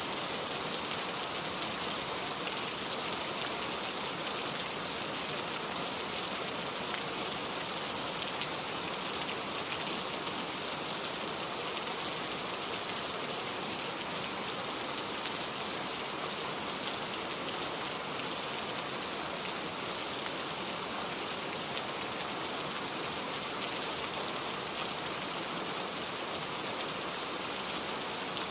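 Steady rain falling, an even hiss of drops with fine pattering and no change in intensity.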